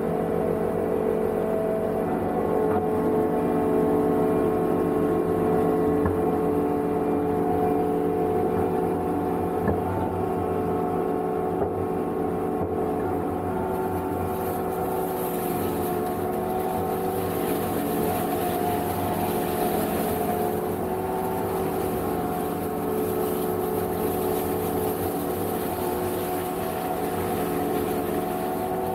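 Energreen ILF S1500 self-propelled boom mower running steadily under load, its engine and hydraulic drive holding several steady tones. From about halfway through, a rising hiss joins in as the boom-mounted cutting head chews into thick dry reeds and brush.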